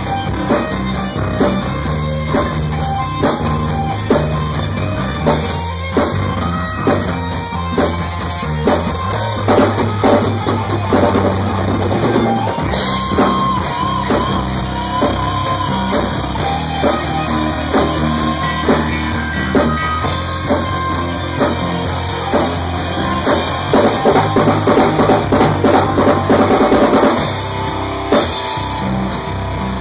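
Rock band playing in drop C tuning, led by a drum kit over sustained low notes. A dense run of fast strikes comes a few seconds before the end.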